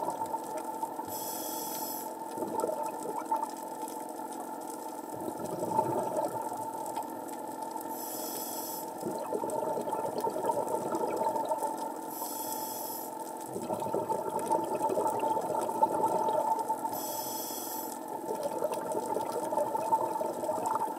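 Scuba diver's breathing recorded underwater through a regulator: four short high hisses of inhalation through the demand valve, a few seconds apart, with a steady gurgling rumble of exhaled bubbles that swells and fades between them.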